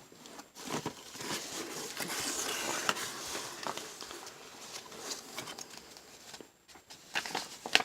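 Package being opened by hand: irregular rustling and crinkling of packaging and paper, with small clicks and taps.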